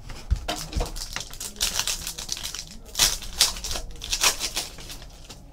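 Football trading cards and their pack being handled: a run of quick rustling, sliding and crinkling sounds as the cards are pulled and shuffled through.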